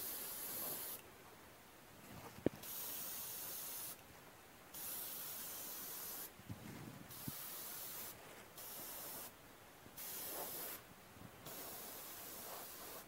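Gravity-fed airbrush spraying in about seven short hissing bursts, each a second or so long, with brief pauses between them. A single sharp click about two and a half seconds in.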